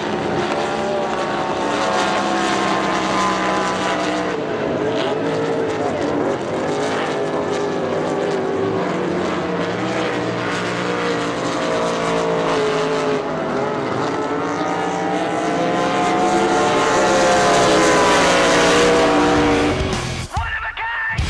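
Supercharged small-block Chevrolet V8 of a drag-style race boat running at high revs, its pitch wandering up and down with the throttle and the boat's passing. It cuts off sharply about a second before the end.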